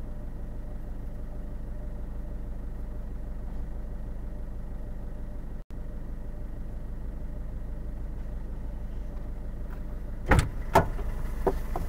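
Car engine idling steadily, heard from inside the cabin. Near the end come two loud knocks half a second apart, a car door being opened and shut as the driver gets back in, followed by a few smaller knocks.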